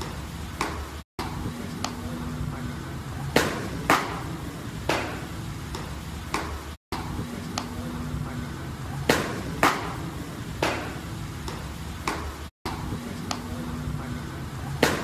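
Hard fastballs smacking into a catcher's mitt: two sharp pops about half a second apart, then a softer one a second later. The same pattern comes three times as the clip repeats, with a brief dropout where it restarts.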